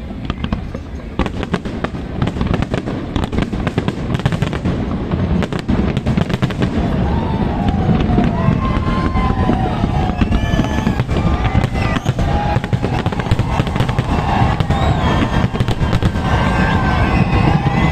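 Fireworks going off in rapid succession: a dense run of bangs and crackles over a low rumble, growing louder over the first several seconds, with pitched wavering tones mixed in over the second half.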